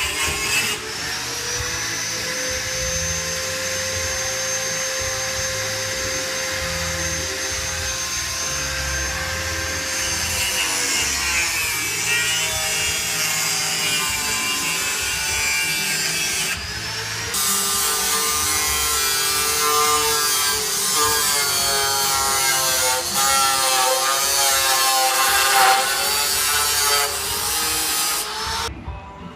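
High-speed rotary power tool cutting sheet steel for a floor patch panel: a steady whine that sags and wavers in pitch as the wheel bites into the metal, in several spliced stretches.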